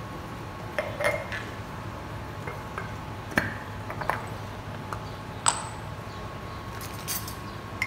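Glass spice jars and a spoon clinking as seasonings are opened and scooped out: a handful of separate sharp clinks, the loudest about five and a half seconds in, with a brief ring.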